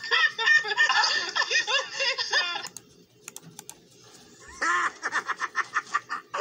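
Two cartoon characters laughing heartily, played from a computer's speakers. About three seconds in come a few sharp clicks, then a second burst of rapid stuttering, laughter-like sound from the next clip.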